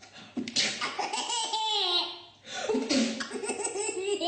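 A baby laughing hard at a sneeze, in two long bursts of laughter with a short break about two and a half seconds in.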